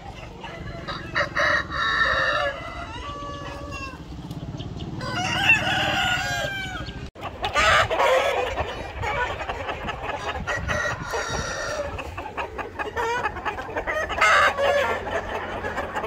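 A large flock of chickens and roosters clucking and calling over one another, with roosters crowing several times.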